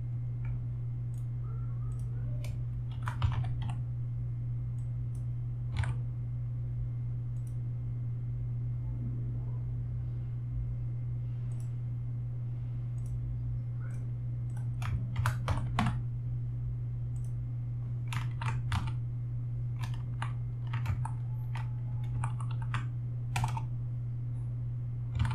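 Computer keyboard keystrokes and mouse clicks in scattered small clusters, over a steady low hum.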